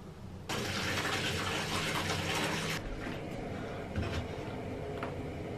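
Bath tap running, water pouring into a filling bathtub; it starts about half a second in as a loud rushing splash and settles to a softer, steady running about halfway through.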